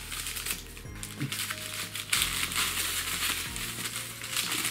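Crinkly green wrapping crackling as it is unwrapped and crumpled in the hands, the crackle getting busier about two seconds in.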